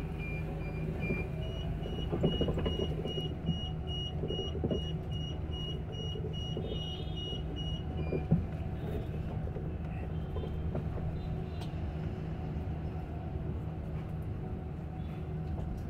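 Cabin noise of an Olectra K9 electric bus on the move: a steady low hum and road noise, with a high, dashed repeating tone that stops about eight seconds in. A single knock sounds just after that.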